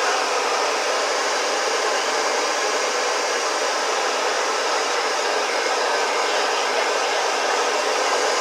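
Hair dryer blowing steadily on a slime, heating it to make it soft again.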